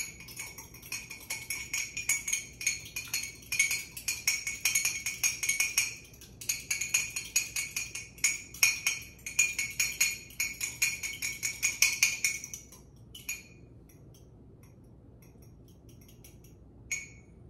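Metal utensil beating a raw egg in a ceramic mug: rapid, ringing clinks against the mug's sides. There is a short break about six seconds in, the clinking stops about thirteen seconds in, and one more clink comes near the end.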